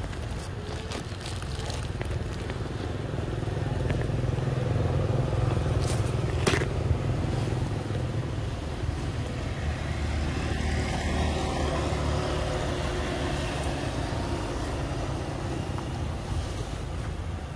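Low, steady engine rumble of a motor vehicle passing on a nearby road, swelling about a third of the way in, with a couple of sharp clicks.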